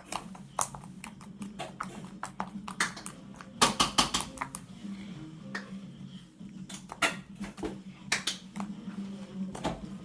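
Clear slime being squished and poked by hand, giving a run of irregular sharp clicks and pops, thickest about four seconds in.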